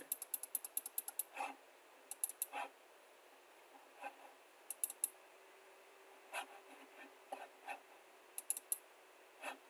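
Computer mouse clicking: a fast even run of clicks in the first second or so, then single and double clicks spaced a second or so apart.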